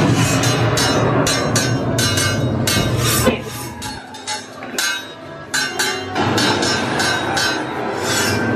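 Haunted-house sound effects: rhythmic clanking, about three sharp strikes a second, over a low rumble that drops away about four seconds in.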